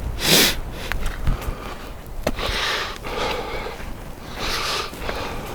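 A sharp sniff, then several loud breaths a second or two apart, from a hiker breathing hard as he walks.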